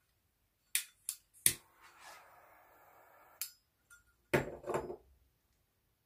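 Steel tweezers clicking and scraping in a paracord bracelet's weave as a cord end is tucked in: a few sharp clicks in the first second and a half, a soft rubbing of cord, then a louder clatter of handling about four seconds in.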